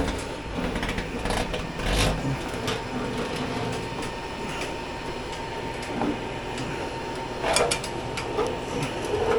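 Irregular clattering with a few sharp knocks, over a faint steady hum.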